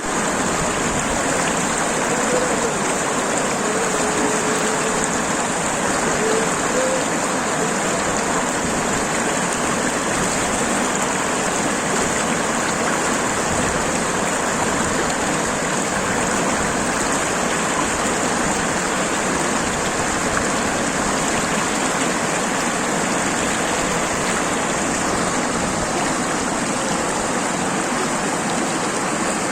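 River water rushing over stones in a steady, unbroken rush.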